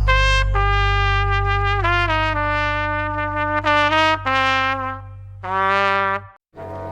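Music: a lead melody of held notes over a sustained low bass note. It cuts out briefly near the end before another song starts.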